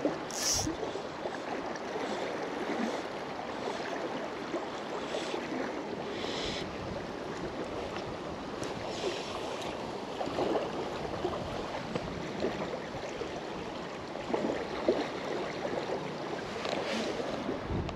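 River water flowing and lapping close by, a steady rush of current, with a few brief rustles over it.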